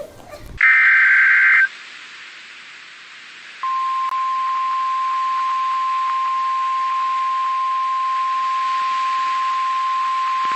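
NOAA Weather Radio alert over radio hiss: a one-second burst of SAME digital header tones, then a couple of seconds of static, then the steady 1050 Hz warning alarm tone, which marks a warning, here a tornado warning.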